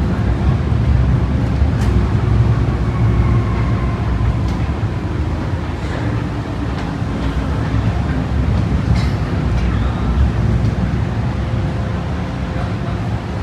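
MTR M-Train electric multiple unit running into a station: a steady low rumble of wheels and running gear, with faint tones gliding slowly down and a few light clicks.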